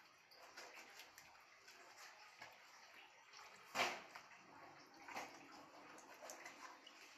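Knife cutting wet goat intestine on a plastic cutting board: faint soft cuts, taps and scrapes, with one brief louder wet handling sound a little before halfway as a piece is lifted and moved, and a smaller one a second later.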